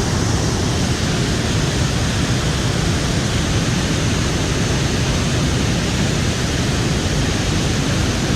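Waterfall in full flood on a fast-flowing river, a loud, steady rush of water that never lets up.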